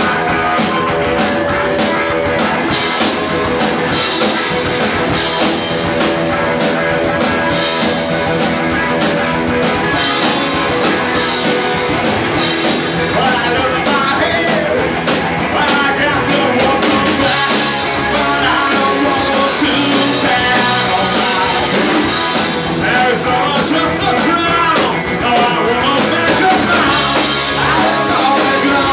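Rock band playing a song live: electric guitars, bass and drum kit.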